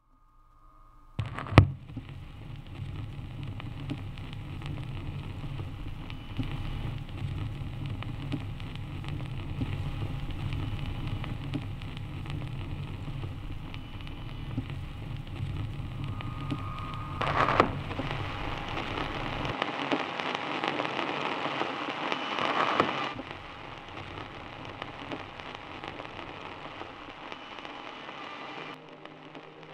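Dense hissing, crackling noise texture in an abstract film soundtrack, with a low rumble under it that drops out about two-thirds of the way through. A sharp crack comes about a second and a half in, another about 17 seconds in, and the noise swells and thins a few seconds later.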